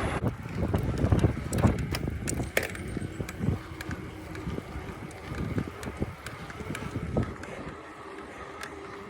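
Bicycle rolling over a rough track, with irregular rattles and knocks over a low rumble that eases off near the end.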